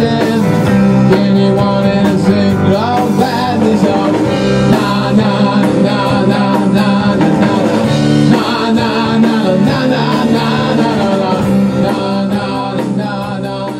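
Rock band playing live: drum kit with cymbals, electric guitar and a male vocal, all at full volume and getting quieter near the end as the song winds down.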